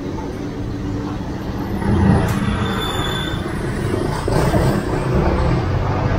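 Slow street traffic: cars and motor scooters passing close by, their engines running in a steady low rumble.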